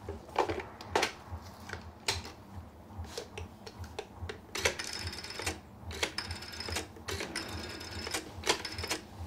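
Black rotary-dial telephone being used: the handset is picked up with a few clicks and knocks, then from about halfway in the dial is turned and runs back with a fast, even clicking and a faint whir, several times in a row, as a number is dialled.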